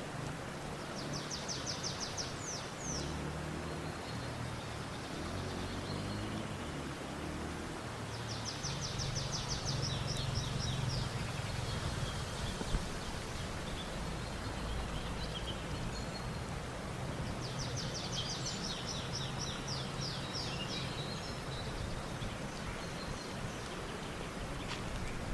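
A songbird singing a quick, rapid trill three times, each phrase about two seconds long and spaced about eight seconds apart, over a steady hiss of outdoor background noise.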